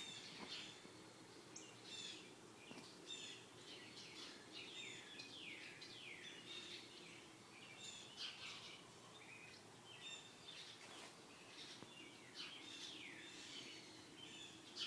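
Birds chirping and singing faintly: many short calls, several sliding down in pitch, over a faint steady low hum.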